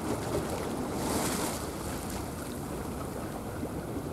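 Wind buffeting the microphone over choppy sea water, a steady low rumble with the wash of waves, and a brief hiss about a second in.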